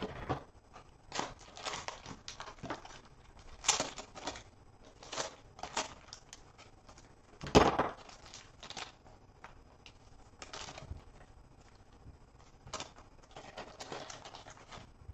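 Plastic wrapping on a pack of trading-card sleeves crinkling and tearing as it is handled and opened by hand, in irregular bursts, the loudest about halfway through.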